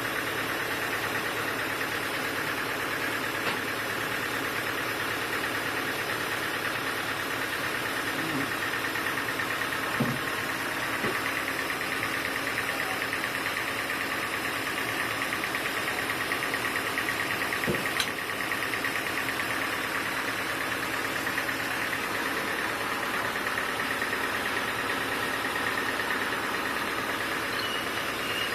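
Sawmill machinery running steadily with a constant mechanical drone, broken by a couple of sharp knocks partway through.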